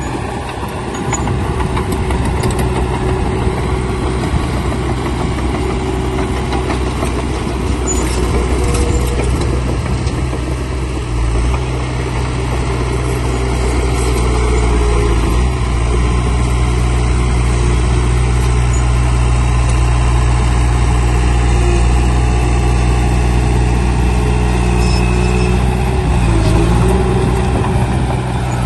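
Bulldozer's diesel engine running steadily as a low, continuous drone. It gets heavier and a little louder about eleven seconds in.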